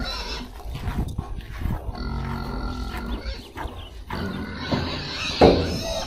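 Pigs grunting at feeding time, crowding in for their feed, with one loud short sound about five and a half seconds in.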